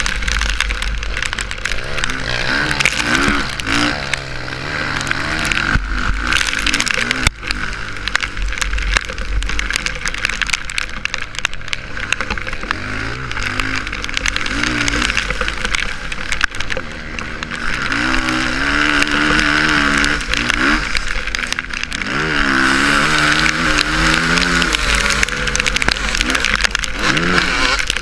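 Suzuki RM-Z450 four-stroke single-cylinder motocross engine under riding, revving up and dropping off again and again through the track, over a steady low rumble.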